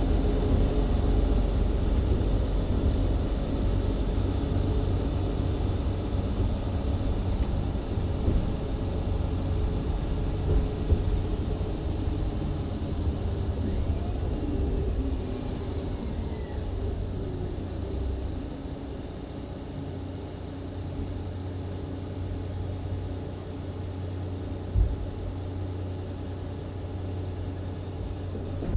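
Diesel engine and drivetrain of a Mercedes-Benz Citaro C2 LE hybrid city bus with a Voith automatic gearbox, heard from inside the bus as it drives. The engine hum eases off over the first twenty seconds and settles lower and steady. A single short knock comes near the end.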